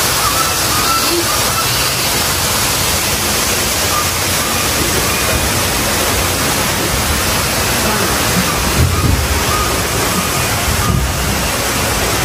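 Steady rushing of water from the rainforest scene's water effects, heard from the ride boat, with two short low rumbles near the end.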